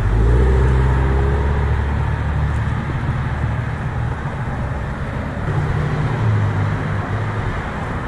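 Road traffic: car engines running, one car close by accelerating away in the first couple of seconds, then a steady hum of traffic.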